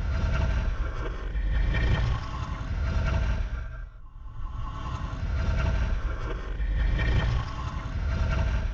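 Ghost breathing sound effect: slow, deep, breathy swells with a low rumble under a hiss, two long breaths, the second beginning about four seconds in.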